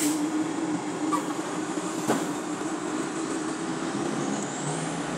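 Heavy diesel dump trucks running close by, a steady engine drone, with one short sharp knock about two seconds in.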